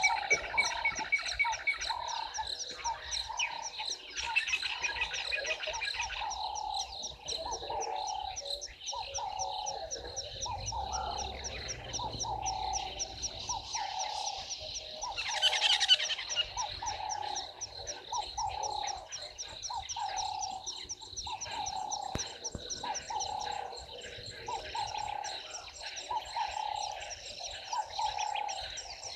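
Frogs calling at a waterhole: one croak repeats steadily about once a second, over a fast, high chirping chorus. About halfway through there is a brief, louder hissing noise.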